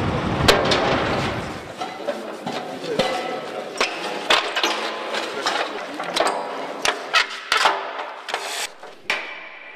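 A truck engine rumbles steadily, then after a cut comes a run of sharp, irregular metallic knocks and clanks as a truck axle housing is handled and struck.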